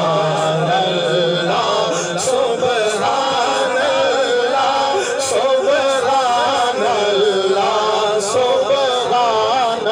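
A man chanting a naat into a microphone, drawing out long wavering notes with ornamented, gliding melody.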